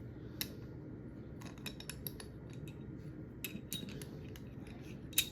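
Scattered clicks and clinks of tow-hook license plate bracket parts and hardware being handled and fitted together, the loudest click just before the end.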